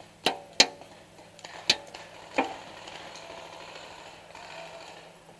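Paintball fire: four sharp cracks, some with a short ring, within the first two and a half seconds, then a softer steady noise.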